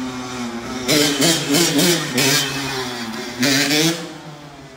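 Dirt bike engine revving hard as it accelerates, its pitch climbing and then dropping with each gear change, loudest about a second in and again past three seconds.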